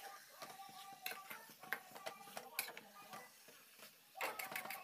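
Metal spatula stirring chicken pieces in masala in an aluminium kadai, with irregular clicks and scrapes against the pan that grow busier and louder near the end.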